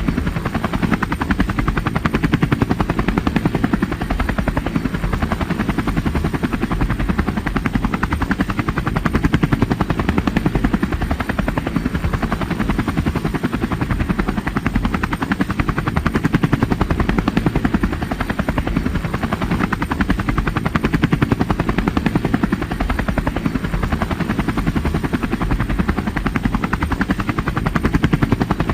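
Helicopter in flight: the rotor blades chop fast and evenly over a steady engine drone, with no change in pitch or loudness.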